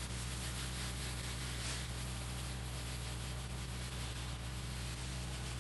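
Pressure washer running: a steady hiss of high-pressure water spray over a constant low motor hum.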